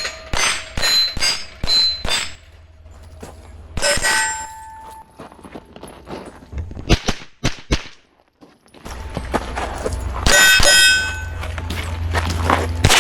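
Rimfire rifle shots striking steel targets: sharp cracks, each followed by a short metallic ring from the steel plate. A fast string of hits, then a few scattered sharper cracks and a brief lull about eight seconds in, then another rapid string of ringing hits.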